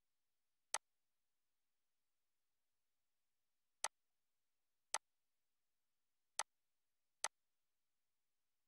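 Five sharp clicks of a computer mouse button, spaced irregularly, with near silence between them.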